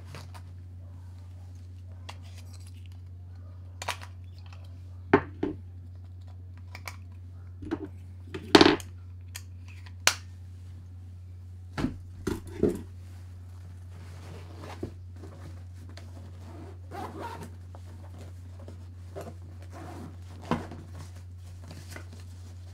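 Handling noise from camera batteries being packed into a fabric battery pouch: scattered clicks, knocks and rustles, with a louder short rip about eight and a half seconds in. A steady low hum runs underneath.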